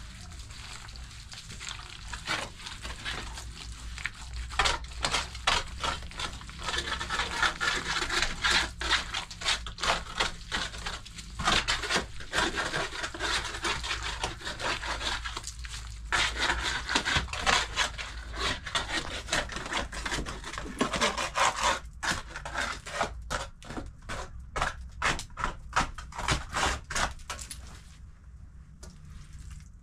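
Straw-and-mud plaster being scraped and rubbed, in many quick, irregular strokes with brief pauses, quieter near the end.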